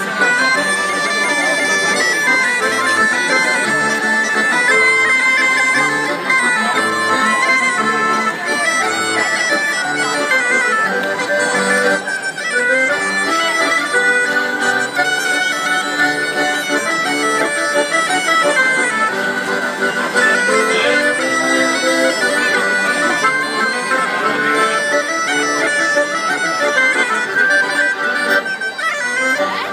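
Live folk dance music from a small band: a droning wind melody over held notes, with a steady beat underneath.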